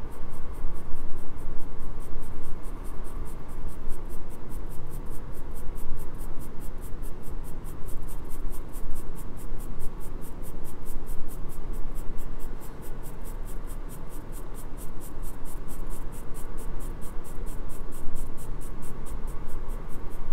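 Graphite pencil scratching on drawing paper as it shades, in quick, regular back-and-forth strokes.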